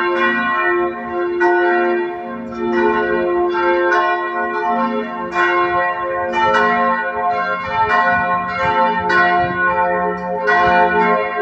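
Church bells ringing, struck about once every second and a bit, each stroke's tones ringing on over the next. This is the six o'clock evening bell calling the hour of prayer.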